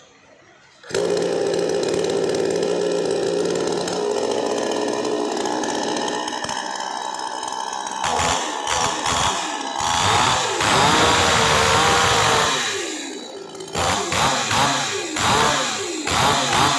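Kingpark petrol chainsaw starting about a second in, then running steadily at idle. From about eight seconds it is revved with the throttle: one long rev held for a couple of seconds, then a string of short revs near the end.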